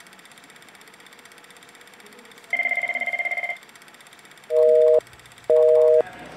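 Electronic telephone ringing, one trilling ring about a second long partway through. Then three louder, steady two-note beeps of about half a second each, half a second apart, like a phone line tone.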